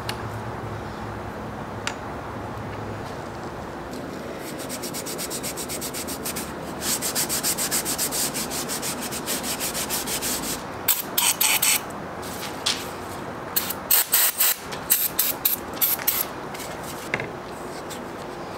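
Rust being scrubbed by hand off the rusty bed of an Atlas lathe: quick, even back-and-forth rubbing strokes, several a second, starting a few seconds in and growing louder, then two spells of short, harder strokes near the end.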